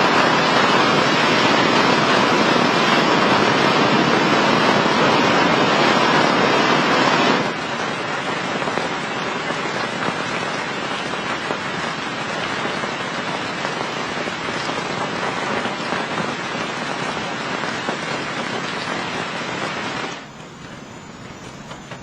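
Heavy rain falling, a steady hiss that drops abruptly in level about seven seconds in and again near the end.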